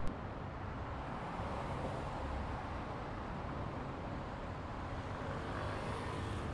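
Steady outdoor background rumble of distant road traffic, with a brief click at the very start.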